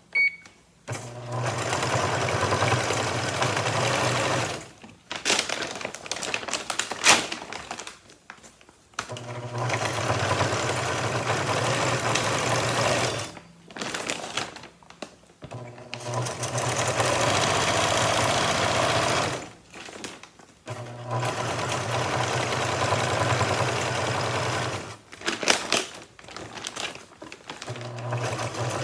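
Electric sewing machine stitching through a woven polypropylene feed sack in runs of a few seconds, stopping and starting about seven times. Between runs the stiff sack crinkles and clicks as it is turned under the presser foot.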